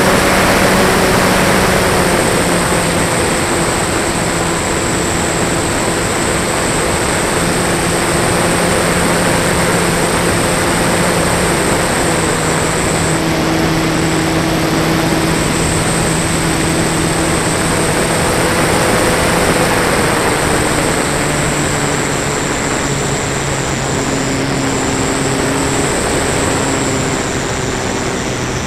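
Electric motor and propeller of a Flyzone Beaver RC plane heard from an onboard camera in flight, over a steady rush of air. The motor tone shifts in pitch with the throttle and settles lower near the end as the plane comes in low to land.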